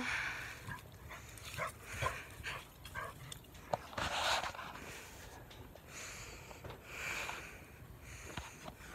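A dog panting and sniffing at close range in a few breathy bursts, the strongest about four seconds in, with light clicks and rustles in dry grass and leaves.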